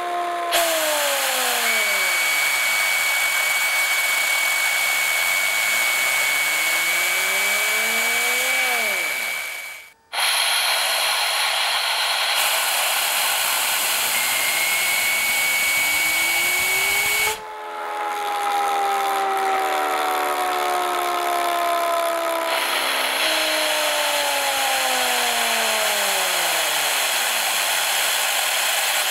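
Homemade Tesla turbine with CD discs, driven by compressed air: a steady air hiss from the injector over the rotor's whine. The whine falls as the discs slow, then rises as they spin up again, several times over, as the air jet is swung to reverse the turbine. The air cuts out briefly about ten seconds in.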